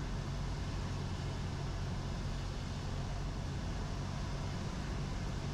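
Cessna 172's piston engine and propeller heard from inside the cockpit, a steady low drone on final approach with no change in power.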